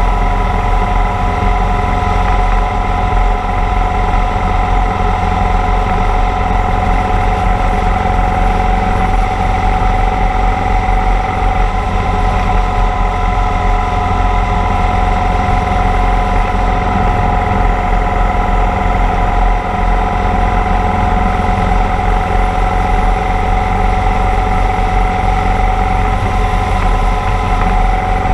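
Motorcycle cruising at a steady speed, heard from a helmet-mounted camera: heavy wind rumble over a steady engine drone that rises slightly in pitch near the end.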